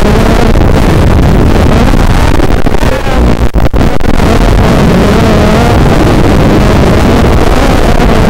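Racing quadcopter's brushless motors and propellers running hard, a distorted buzz whose pitch rises and falls with the throttle, mixed with wind rush. About three and a half seconds in the sound briefly drops away, as if the throttle were chopped.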